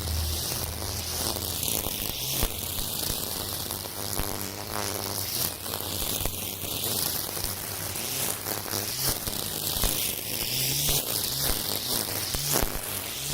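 Battery-powered string trimmer with nylon cutting line running and cutting through weeds: a low motor hum that shifts in pitch as the load changes, under a dense high hiss, with scattered sharp ticks.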